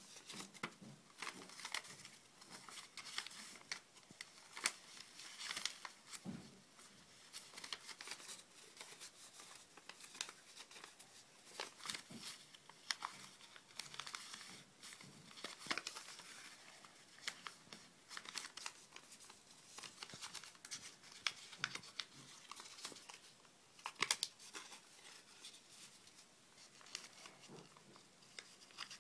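Sheet of origami paper being folded and creased by hand: irregular crisp crinkles and rustles, with a few sharper crackles.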